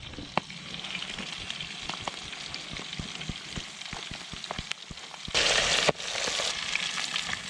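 Pieces of catfish deep-frying in hot oil: a steady sizzle with scattered small pops and crackles. The sizzle swells louder a little past five seconds in.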